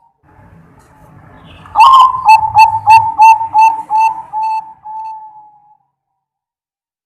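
Zebra dove (perkutut) cooing: a quick run of about ten short coos, about three a second, starting about two seconds in and dying away before six seconds.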